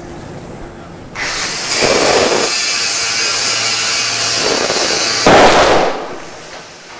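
A grinder starts about a second in and grinds steadily, then about five seconds in a sudden loud bang, the loudest sound here, as hydrogen gas given off by a charging lead-acid car battery ignites and the battery explodes; the noise dies away over about a second.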